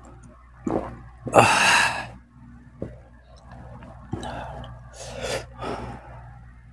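Close-miked eating sounds from a person: small mouth clicks, a loud sharp gasping breath about a second and a half in, and softer breathy exhales around the middle.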